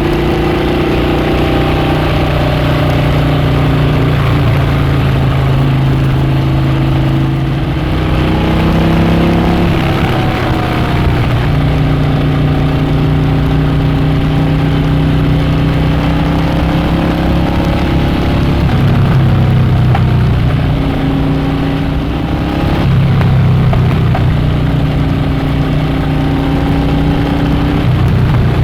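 Harley-Davidson Dyna Switchback's V-twin engine and exhaust running under way, the engine note rising and falling several times as the throttle is worked, with a dip and climb in pitch about eight to eleven seconds in.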